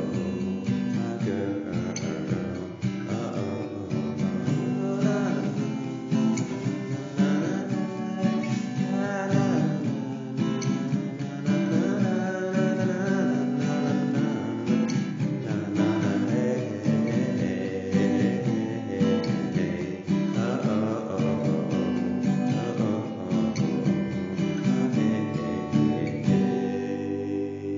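Music played on strummed acoustic guitar.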